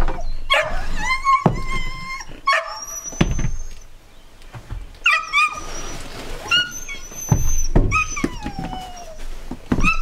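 A dog whining and yipping in a series of high-pitched cries, one longer whine falling in pitch near the end. Between the cries come a few thumps of boots and gear set down on a wooden porch bench.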